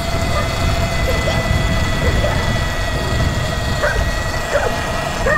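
Sur Ron electric dirt bike riding along with a steady high motor whine over rumbling wind and tyre noise, while a dog barks several times, mostly in the second half.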